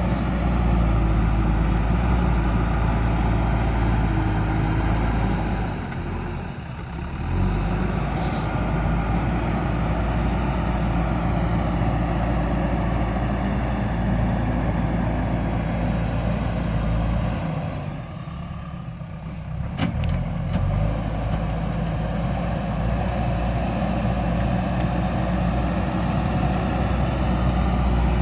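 JCB backhoe loader's diesel engine running steadily, dropping in level twice briefly.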